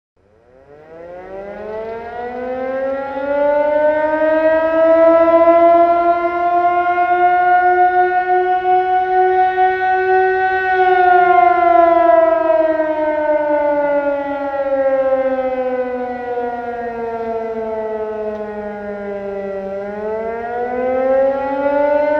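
A siren wailing: it fades in over the first few seconds while its pitch climbs slowly for about ten seconds, then slides down for about nine seconds, and starts rising again near the end before cutting off suddenly.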